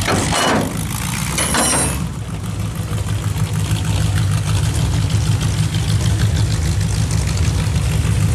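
Demolition derby car engine idling with a steady low rumble, with two brief falling sweeps in the first two seconds.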